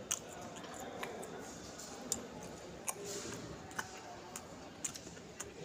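A person chewing food with wet mouth clicks and lip smacks, about once a second.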